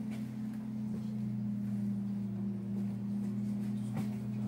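Steady low drone made of two held low tones, with a single faint click about four seconds in.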